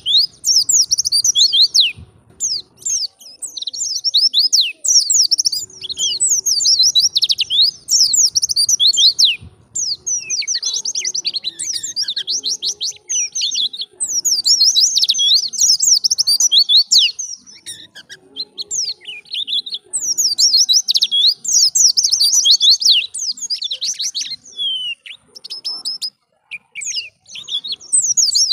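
Wild white-eye (pleci) singing: rapid, high-pitched twittering phrases a few seconds long, separated by short pauses.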